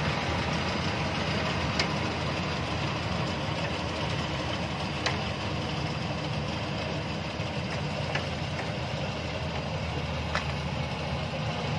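ISEKI rice combine harvester running steadily, its engine holding an even note, with a few sharp clicks about two, five, eight and ten seconds in.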